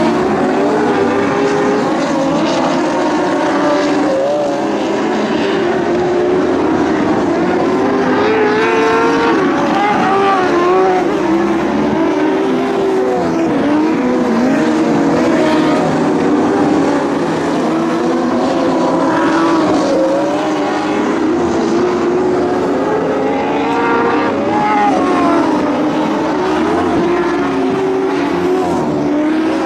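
Several Lightning Sprint cars (small winged dirt-track sprint cars) racing in a pack around a dirt oval. Their engines rise and fall in pitch over and over as they accelerate down the straights and lift for the turns, a continuous, loud overlapping engine note.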